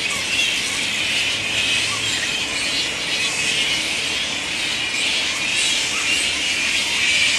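A roosting flying fox colony, mostly grey-headed flying foxes, calling: a dense, continuous chorus of many overlapping high-pitched squabbling calls.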